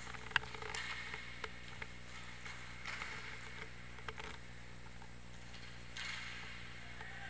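Scattered sharp clacks of hockey sticks and puck during inline hockey play, the loudest about half a second in, with a few fainter ones after.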